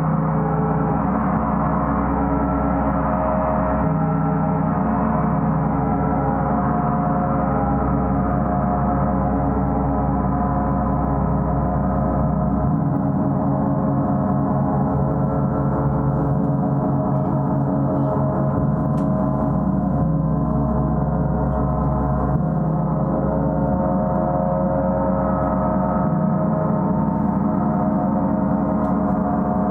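Gong played without pause: a steady, dense wash of many overlapping ringing tones. The deep hum underneath changes every few seconds as the gong is struck again.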